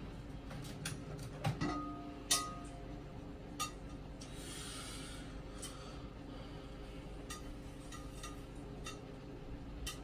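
Metal tongs clinking and scraping against the glass bowl of an oil-less halogen fryer as chicken cutlets are turned: a scattering of sharp clinks, several ringing briefly, with a short hiss about four seconds in.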